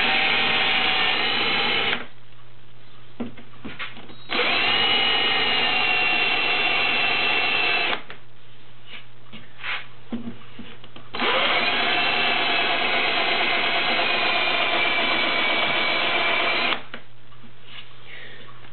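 Power drill running a countersink bit into pre-drilled screw holes in a wooden frame, in three runs: one that stops about two seconds in, one of about four seconds, and one of about five and a half seconds. Each run is a steady motor whine whose pitch sags slightly as the bit bites into the wood.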